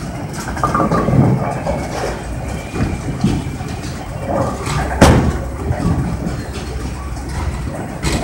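Bowling alley din: the steady low rumble of bowling balls rolling down the lanes, with scattered knocks and one sharp crack about five seconds in.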